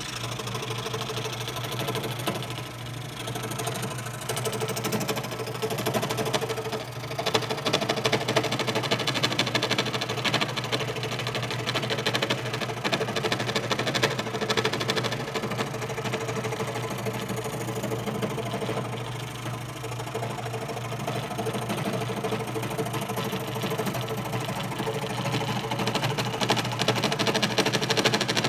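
WEN benchtop scroll saw running steadily, its blade stroking rapidly up and down as it cuts a curved line through a wooden board.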